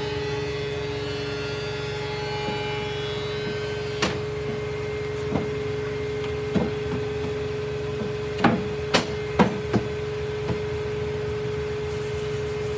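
Sharp wooden knocks from wooden workpieces being tapped and handled: about eight irregular knocks, four in quick succession about two-thirds of the way through, over a steady machine hum.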